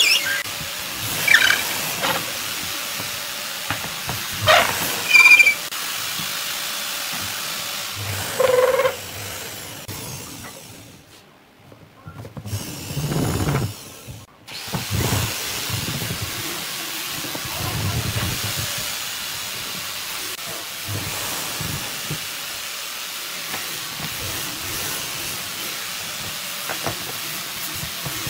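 Wooden pine blocks clacking against each other and the workbench as they are slid onto a threaded steel rod: a few sharp knocks in the first half, some briefly ringing, over a steady hiss.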